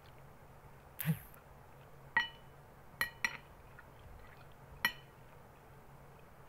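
Metal spoon clinking against a glass bowl four times as food is scooped up, each a short ringing chink, two of them close together. A brief, duller noise comes about a second in, before the clinks.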